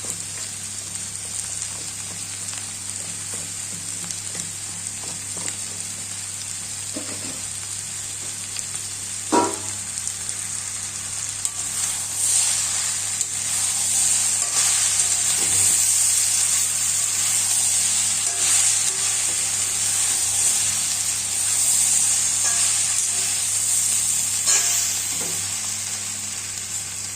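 Chickpea curry masala sizzling in hot oil in a pan as it is stirred, with a sharp knock about nine seconds in; the sizzle grows louder about halfway through.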